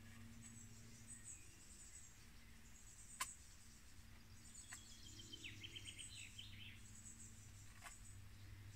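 Near silence: faint high bird chirps from outside over a low steady hum, with a few sharp clicks, the loudest about three seconds in.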